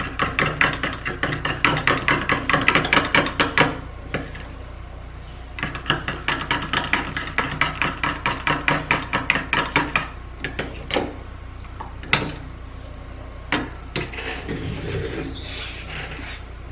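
Brisk stirring of a homemade skin-remedy mixture with egg white in a bowl, the utensil clicking against the sides about five times a second in two long runs, then a few scattered taps.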